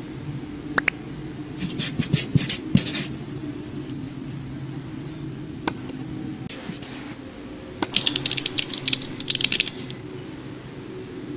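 Scattered sharp clicks and short bursts of scratchy rattling, like small hard objects clattering and scraping against each other, over a steady low hum.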